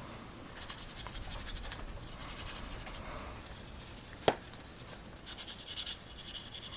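A small paintbrush scratching and rubbing against the plastic of a scale-model fuel tank as oil paint is worked on, in three short spells of quick strokes. There is one sharp click a little past the middle.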